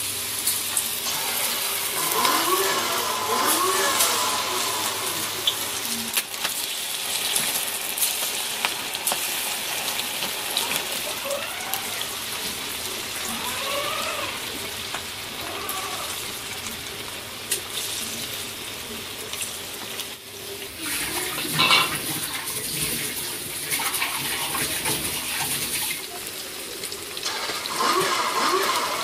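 Marinated, rice-flour-coated chicken pieces deep-frying in well-heated oil in a wok-style pan: a steady loud sizzle and bubbling, with small clicks of pieces and spoon, and one louder knock about three-quarters of the way through.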